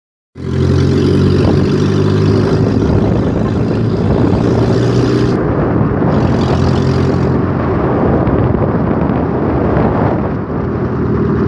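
Chevrolet Kadett's engine running steadily through a straight-pipe exhaust, giving a loud, low rumble.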